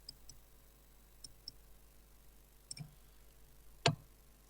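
Computer mouse clicking: faint clicks in close pairs, with one louder click near the end.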